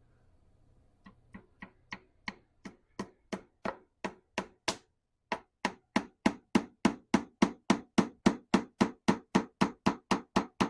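Rapid, even hammer taps driving glued 3/16-inch wooden dowels into worn screw holes to plug them, about three taps a second. The taps start softly, grow louder, pause briefly near the middle and then carry on.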